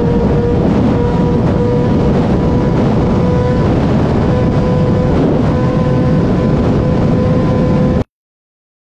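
Sport motorcycle engine held at high revs at speed, a steady engine note creeping slightly higher, under heavy wind buffeting on the helmet microphone. The sound cuts off suddenly near the end.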